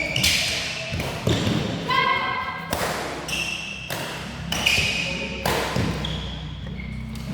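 Badminton doubles rally: rackets striking the shuttlecock roughly once a second, with a few short squeaks of shoes on the court floor.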